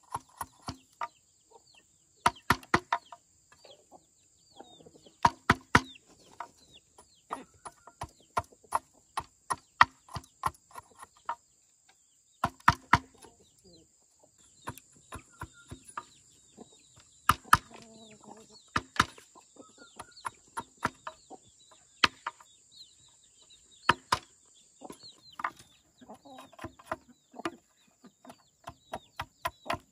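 Sharp knocks of a tool striking, coming in irregular bursts with a quick run of about four strikes a second near the end. A faint steady high-pitched drone sounds underneath.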